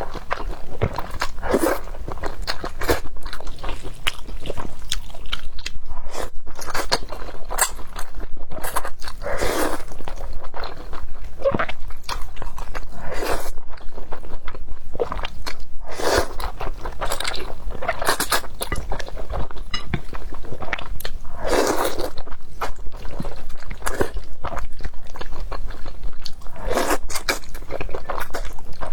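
Close-miked eating sounds: continuous chewing and crunching of mouthfuls of food, with a fuller, louder mouth sound every several seconds.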